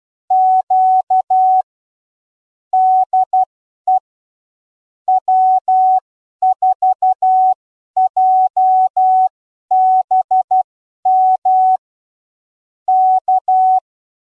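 Morse code sent as a single steady mid-pitched tone, keyed on and off in short and long elements, with longer pauses between groups.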